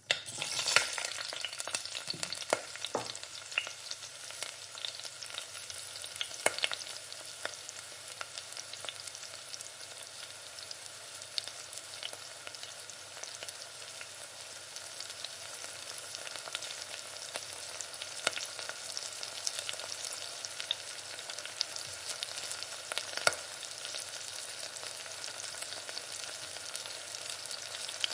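Food sizzling in a hot frying pan: a steady hiss full of small crackling pops, with a few louder spits now and then.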